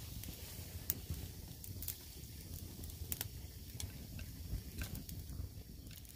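Wood campfire burning, with scattered sharp crackles and pops at irregular intervals over a low rumble.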